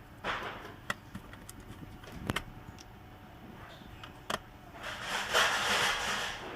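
Laptop parts being handled during disassembly: a few separate sharp clicks and knocks, then a longer scraping, rustling noise about five seconds in.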